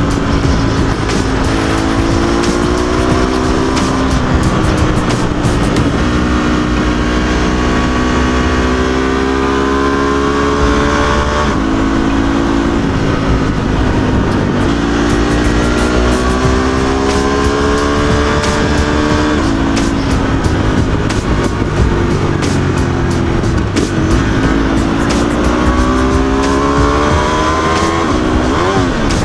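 Ducati 848 Evo's L-twin engine under way, its pitch climbing steadily and then dropping abruptly several times as the throttle is worked, with wind rushing over the microphone.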